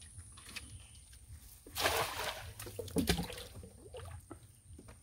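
A hand-thrown cast net splashing down onto shallow water about two seconds in, followed about a second later by a second, shorter splash.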